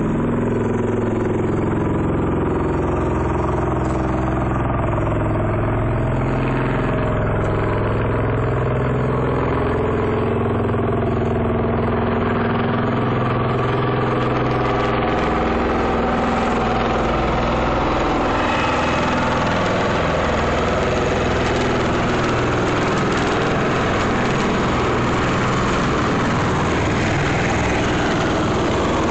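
V-22 Osprey tiltrotor in helicopter mode, its proprotors and turboshaft engines making a loud, continuous drone as it draws closer. The sound grows rougher and fuller about two-thirds of the way through.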